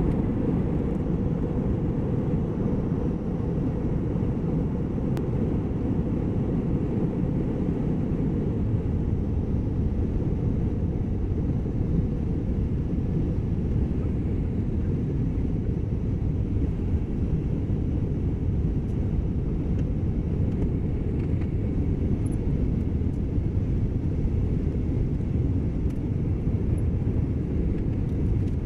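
Jet airliner cabin noise during descent: a steady, even low rumble of engine and airflow noise.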